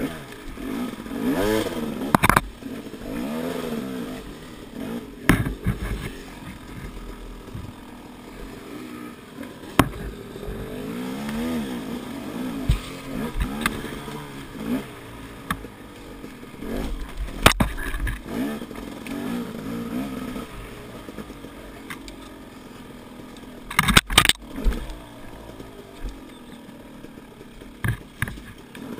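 KTM off-road dirt bike engine being ridden on and off the throttle, its pitch rising and falling again and again. Sharp knocks and clatter come now and then, the loudest pair near the end.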